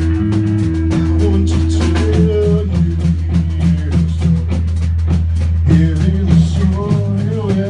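Hard rock band playing live: drum kit keeping a fast, steady beat under guitars and bass.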